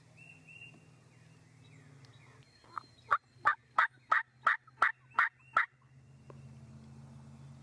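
A series of about eight loud turkey yelps, roughly three a second, starting nearly three seconds in.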